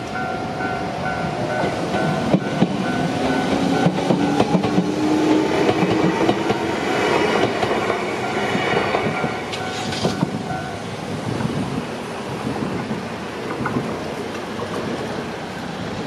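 Japanese level-crossing warning bell ringing in a steady repeating pattern while a Shizuoka Railway electric train passes over the crossing. The train's wheels clack over the rail joints, with a whine rising in pitch as it goes by. The bell stops about eleven seconds in, leaving road noise.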